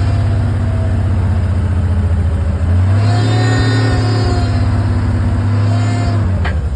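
An engine running steadily, revved up about three seconds in and dropping back to a lower speed near the end, with a single sharp click just before the end.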